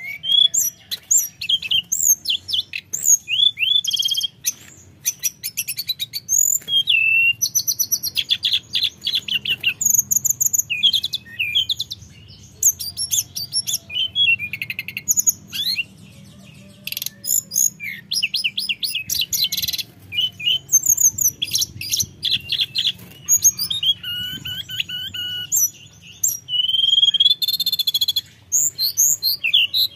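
Hill blue flycatcher (tledekan gunung) singing in full voice: long runs of rapid, varied high whistles, quick sweeping notes and trills, phrase after phrase with only brief pauses.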